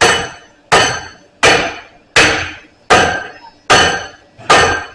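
A hand hammer striking a steel bar clamped in a blacksmith's vise to bend it: seven evenly paced blows, about one every three-quarters of a second, each with a short metallic ring.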